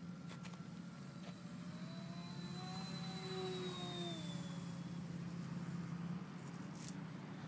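Electric motor and propeller of a ParkZone P-51 Mustang RC plane on a 4S battery flying past overhead: a whine that swells and then falls in pitch as the plane passes, between about two and five seconds in, over a steady low hum.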